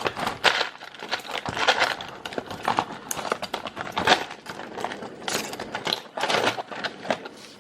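Irregular rustling and crinkling with scattered small clicks: small electronic parts and their plastic packets being handled and sorted through while searching for a spare tactile push-button switch.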